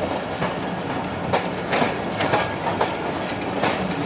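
Train wheels clacking over rail joints at an uneven beat, a few clacks a second, over a steady running rumble with a low hum, heard from on board as the train rolls slowly into a station.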